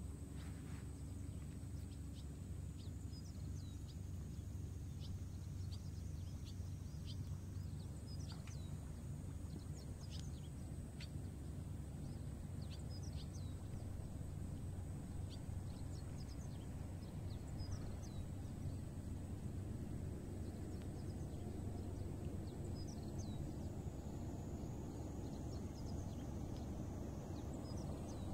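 Cats eating wet food, with scattered small, sharp wet clicks of chewing and licking over a steady low hum.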